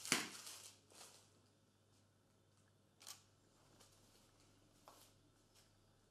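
Faint rustling of bandage material and a plastic sheet as a dog's leg is wrapped, loudest in the first second, with a couple of soft clicks later.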